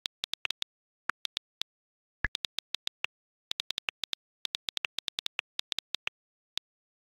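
iPhone on-screen keyboard clicks in quick, irregular runs as a chat message is typed. About two seconds in there is one deeper pop, the message-sent sound.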